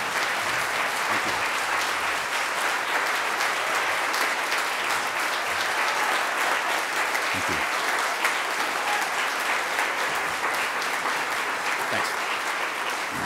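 Audience applauding: many people clapping together in a dense, steady ovation.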